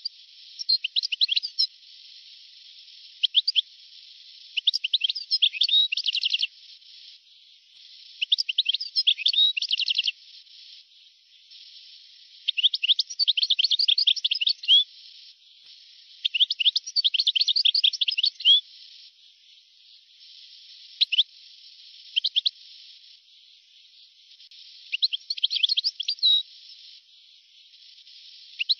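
European goldfinch singing, from an old recording: repeated phrases of rapid high chirps and trills, each a second or two long, broken by short pauses.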